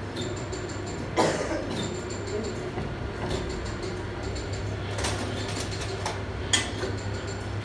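Metal parts of an inline diesel injection pump knocking and scraping as a round housing is fitted onto the pump body by hand: a sharp clack about a second in, with a few more scattered knocks, over a steady low hum.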